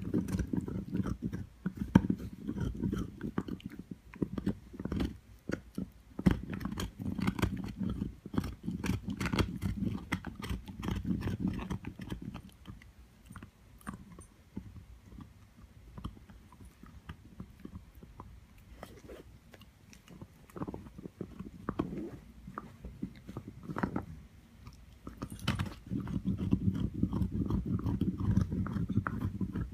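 A young dog gnawing on an antler chew: irregular clicks, scrapes and crunches of teeth on antler. The chewing is busiest for the first dozen seconds, sparser in the middle, and picks up again near the end.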